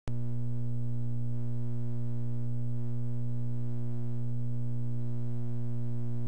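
Steady low electronic hum: one unchanging buzzy pitch with many overtones, held at an even level throughout.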